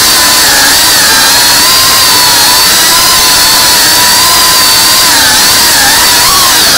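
FPV quadcopter's electric motors and propellers whining at a high, steady pitch, heard very close from the onboard camera; the pitch wavers and dips as the throttle changes, most noticeably near the end.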